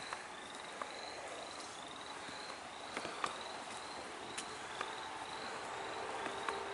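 Crickets chirping, a short high chirp repeating evenly a little under twice a second, with a few scattered sharp clicks. A low steady hum joins about five seconds in.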